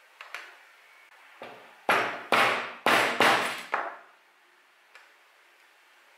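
Pricking iron struck with a mallet, punching stitching holes through leather into a punching board: a couple of light taps, then a run of about five hard blows roughly half a second apart, each fading quickly.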